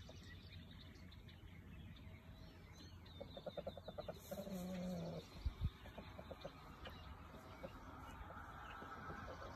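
Chicken clucking: a quick run of clucks about three seconds in, followed by a short, low drawn-out call, then a dull thump.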